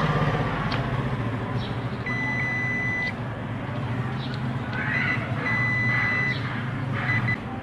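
Multimeter continuity buzzer beeping twice, each a steady high beep about a second long, the first about two seconds in and the second near the six-second mark, as the probes across a charger rectifier diode show a short: the diode is faulty. A low steady hum runs underneath.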